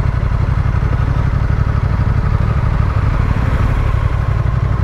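Adventure motorcycle's engine running steadily at low speed, heard from the bike itself as a constant low rumble.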